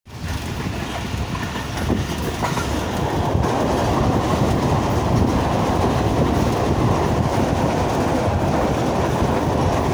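Passenger train running over a steel truss railway bridge, heard from a carriage window: a steady rumble and clatter of wheels on rails. It grows louder about three seconds in, as the coach rolls onto the bridge.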